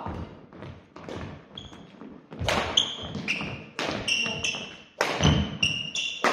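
Badminton rally: sharp racket-on-shuttlecock strikes about every second, with short high squeaks of court shoes on the wooden floor and thudding footfalls between them.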